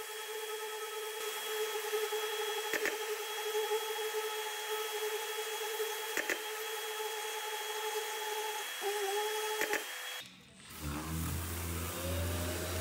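Random orbital sander running steadily with a high whine, levelling keyed scratches in car paint with P240 paper. About ten seconds in it breaks off, and another run starts with a rising whine over a low rumble.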